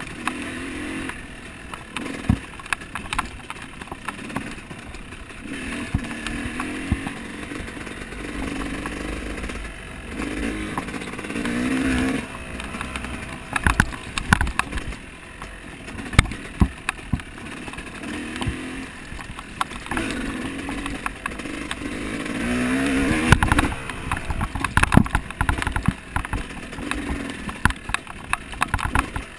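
An off-road vehicle's engine being ridden hard, revving up and dropping back over and over, with frequent rattles and knocks from the rough ground. It runs loudest a little past the middle, during a longer climb in revs.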